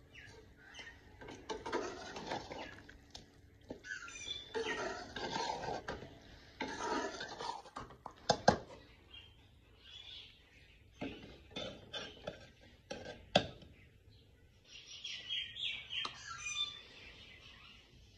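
Steel spatula stirring and scraping a thick meat curry in a metal cooking pot, with several sharp metal clinks of the utensil. Birds chirp about fifteen seconds in.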